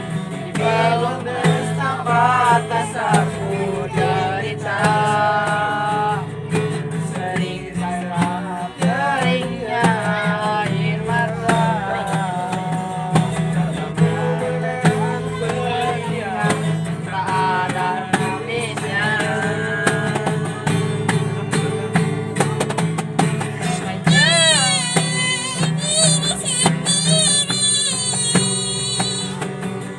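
A song with plucked guitar accompaniment and wordless or unclear singing that bends in pitch; about 24 seconds in, a high voice with a strong wobble comes in.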